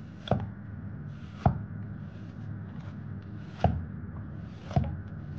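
Chinese cleaver cutting the kernels off a fresh sweet corn cob on a wooden chopping block: four sharp chops about a second apart, with softer slicing sounds between them.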